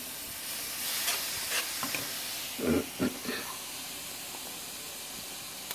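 Steady stovetop hiss from ground beef sizzling in a frying pan and a pot of water at a rolling boil, with two brief soft knocks a little past halfway.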